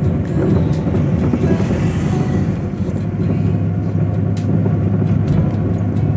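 Maruti 800 small car driving, its three-cylinder petrol engine running steadily under way, with the rattling ('khadkhad') the car makes when driven in fourth gear.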